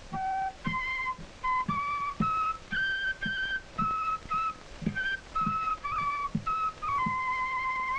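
Quena, the Andean notched flute, playing a slow melody of separate clean notes that ends on a long held note, over soft low drum thumps about twice a second, on an old optical film soundtrack with steady hiss.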